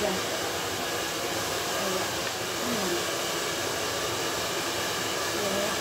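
Water running steadily from a shampoo-basin sprayer over the client's hair and into the basin as it is rinsed: an even, unbroken hiss.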